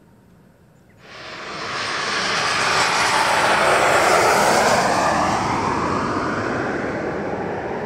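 Twin-engine jet airliner on final approach flying low overhead. Its engine roar starts suddenly about a second in, swells to its loudest near the middle with the pitch sweeping down as it passes, and stays loud as it moves away.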